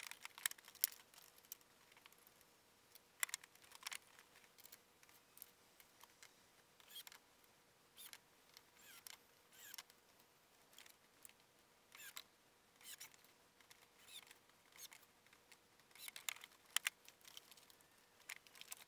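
Faint, irregular clicks and light taps of small things and wood being handled on plywood, about one every second or so, over a faint steady hum.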